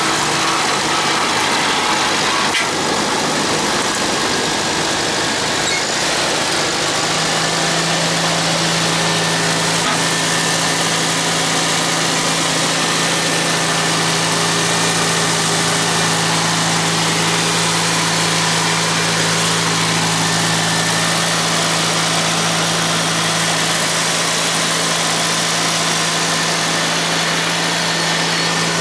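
1950 Farmall Cub tractor's small four-cylinder flathead engine idling steadily, its pitch settling and holding even from about seven seconds in.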